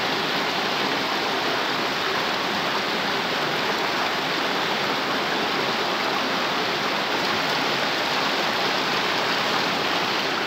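Shallow rocky stream running over stones: a steady rush of flowing water.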